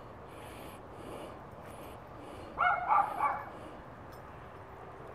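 A dog barking a quick run of about three barks a little past halfway, over a faint steady hiss.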